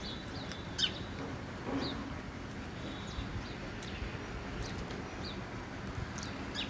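Small birds chirping, short high calls about once a second, over a steady outdoor background hiss.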